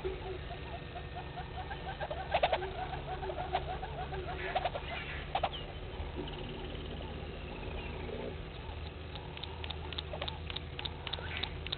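Several wild birds calling in the bush: many short repeated chirps, a few high whistles that slide downward, and low held notes partway through, with scattered sharp clicks throughout.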